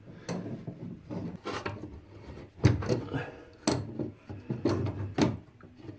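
Scattered sharp knocks and scraping rubs, about half a dozen in a few seconds, from spanners and copper pipe fittings being handled while a compression coupling is worked on.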